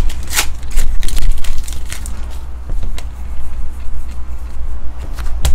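Trading cards being flipped through by hand close to the microphone: light rustling with a few sharp card snaps, over a steady low rumble.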